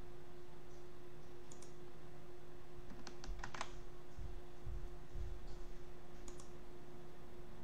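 Sparse clicking at a computer while drawing in CAD software: a single click, then a quick cluster of about four clicks about three seconds in, then another single click. A steady faint hum runs underneath.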